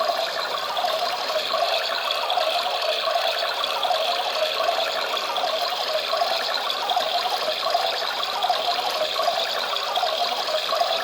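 Small battery-powered toy washing machine running, its little motor whirring steadily as the water churns in the drum.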